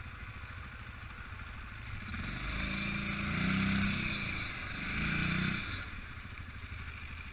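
ATV engine idling with a steady low pulse, then revving up twice, rising and falling in pitch and loudness, before settling back to idle.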